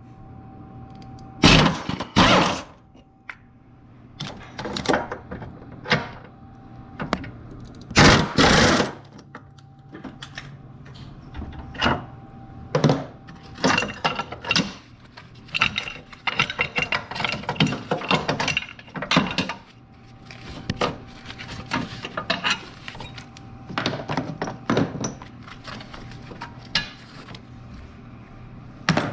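Wrench work on the engine-mount bolts: two loud bursts of about a second each, then a long run of rapid clicking and clinking of tools against metal.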